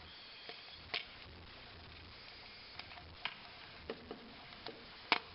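Scattered sharp clicks and taps of a plastic Blu-ray case and discs being handled, about eight irregular clicks, the loudest near the end.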